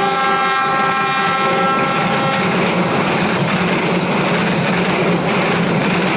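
Diesel locomotive's horn sounding one sustained chord that fades out about two and a half seconds in, over the steady rumble of the passenger train running past.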